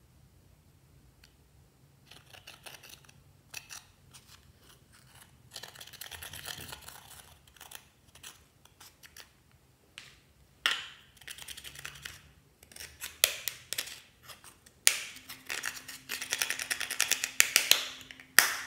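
A metal spatula scraping and crumbling pressed makeup powder out of a plastic compact, in scratchy spells broken by several sharp clicks.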